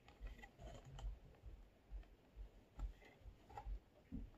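Faint, irregular light clicks and soft bumps of hands handling an action figure's toy packaging.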